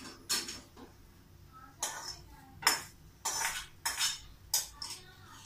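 Metal spoon scraping and clinking against a small metal frying pan as fried egg is scraped out into a bowl, in a series of short, sharp clatters.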